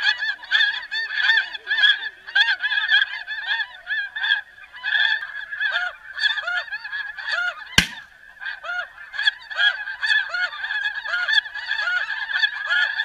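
Snow goose calling: a dense, continuous chorus of many overlapping high yelping honks, with a single sharp click about eight seconds in.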